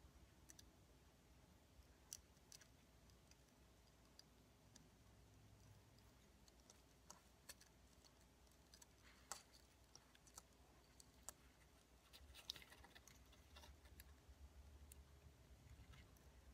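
Near silence with faint, scattered small clicks and ticks from fingers and a thin pick pushing fine wires into a mini drone's plastic frame, a few bunched together about three quarters of the way through.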